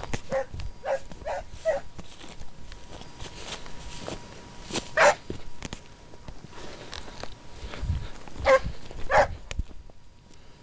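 Scent hound barking in short yelps: a quick run of four in the first two seconds, one loud bark about five seconds in, and two more near the end.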